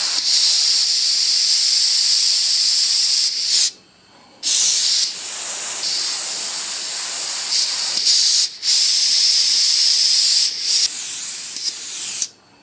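Airbrush spraying paint: a steady high hiss of air and paint from the nozzle, cutting out briefly about four seconds in and again around eight and a half seconds, flickering near the end and then stopping.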